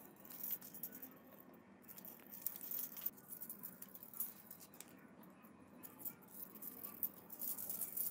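Thin wire bicycle spokes clinking and jangling lightly against each other and the metal hub as they are threaded into the hub flange, in scattered clusters of small metallic ticks.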